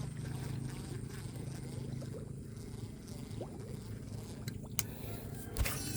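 A steady low motor hum, stronger in the first half, with two sharp clicks near the end.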